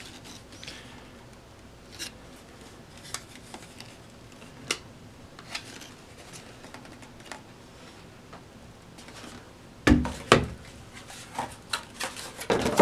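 A cordless hand vacuum and its parts being handled and unpacked: scattered light clicks and rustles, two louder knocks about ten seconds in, and a quick run of clicks near the end.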